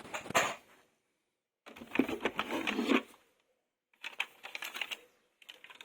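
Plastic toys and packaging being handled: clicking, clattering and rustling in four short bursts, each about a second long, with dead silence between them.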